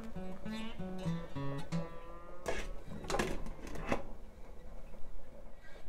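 Background acoustic guitar music: a run of single plucked notes, then a few strummed chords.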